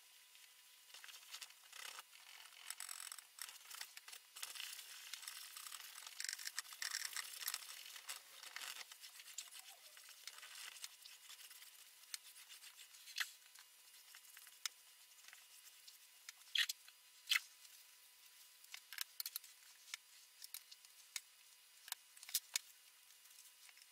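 Paintbrush bristles scrubbing oil paint across a stretched canvas: a faint, dry, scratchy rubbing for the first several seconds, then short dabs and a few sharp clicks.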